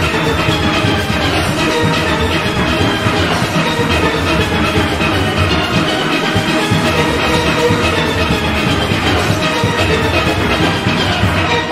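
A steel orchestra playing: many steelpans ringing out a busy melody and chords over steady drums and percussion.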